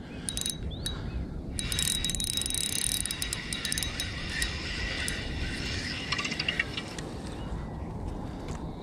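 Spinning reel clicking and whirring while a hooked, hard-pulling sea trout is played on the line; the clicking is densest in the first few seconds, then eases to a steadier whirr.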